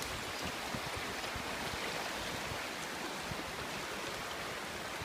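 Steady rushing of a flooded river running high and fast after heavy overnight rain.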